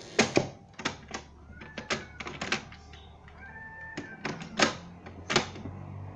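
Irregular clicks and knocks, with a couple of brief high squeaks, over a low steady hum on an old cassette tape recording.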